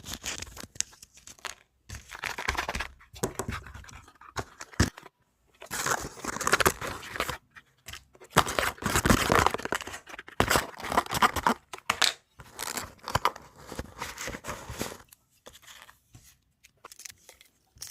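Packaging being handled and wrapped close to the microphone: crinkling, rustling and tearing in irregular bursts with short pauses and a few sharp clicks.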